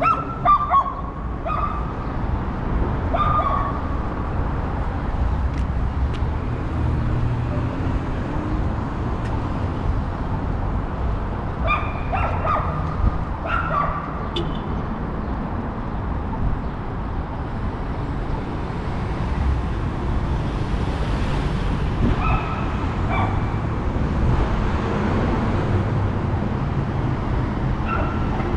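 City street traffic noise: a steady rumble with a car passing about twenty seconds in. A dog whines and yips in the first few seconds, and a few more short, high calls come later.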